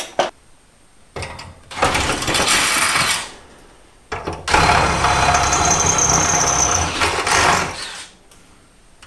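Cordless drill boring out the old rivet holes in the attic stairs' metal hinge to a quarter inch. Two bursts of drilling: a shorter one about a second in and a longer one from about four and a half seconds to nearly eight, with a steady high whine as the bit cuts.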